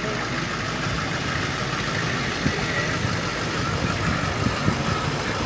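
Engine of a Chevrolet full-size van idling as the van rolls slowly past close by.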